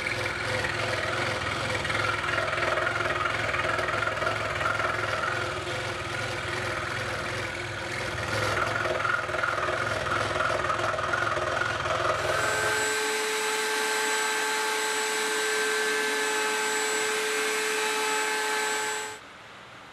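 Scroll saw running, its blade cutting an oval opening in a thin wood panel with a low buzz. About 13 seconds in it gives way to a router mounted in a router table, running with a steady high whine that cuts off sharply near the end.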